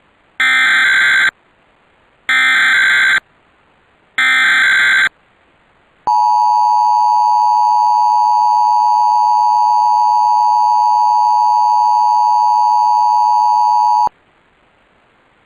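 Emergency Alert System SAME header: three bursts of digital data tones, each just under a second, followed by the two-tone EAS attention signal held steady for about eight seconds and cutting off abruptly. Together they mark the start of a required monthly test.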